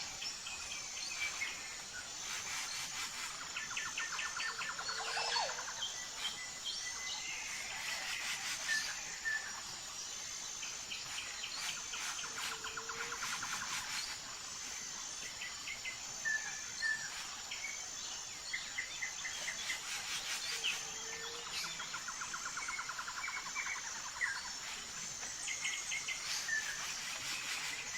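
Several birds chirping and trilling over a steady high insect drone, with a short low call coming back about every eight seconds.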